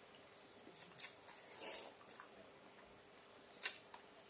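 Quiet eating of noodle soup: a metal spoon clicks against the bowl about a second in and again near the end, with a short slurp in between.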